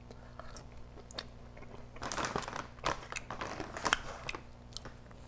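Close-up chewing of a bite of curry-dipped food, heard as irregular mouth clicks with a busier stretch around two seconds in.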